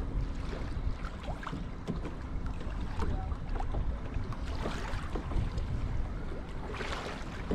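Wind buffeting the microphone over choppy water lapping against a kayak's hull, with a couple of brief louder washes of water.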